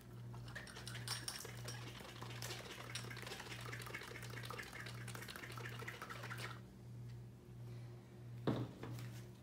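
Liqueur sloshing inside a capped one-gallon glass jug as it is shaken by hand to mix, stopping about six and a half seconds in. A short knock follows near the end, over a steady low hum.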